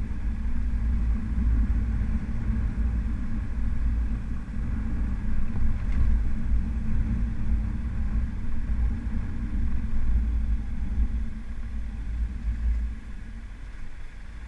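Motorcycle riding along a street, heard from the rider's position: the engine running under a steady low rumble of wind and road noise. It all eases off and gets quieter near the end as the bike slows.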